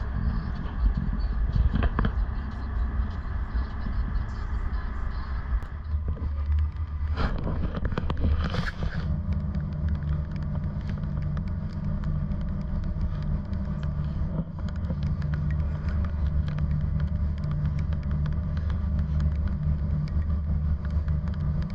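A car ferry's engines drone steadily underway, growing stronger about nine seconds in, with wind rushing over the microphone and gusting briefly around seven to nine seconds.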